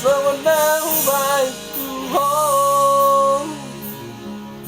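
A Batak-language song: a voice singing over acoustic guitar accompaniment, holding one long wavering note about halfway through before the phrase fades.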